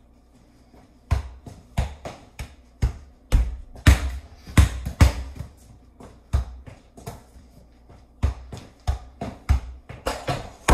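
A volleyball being juggled soccer-style with feet and knees: a run of sharp thumps, one to two a second, as the ball is kicked up again and again, with a short break about five seconds in before the thumps start again.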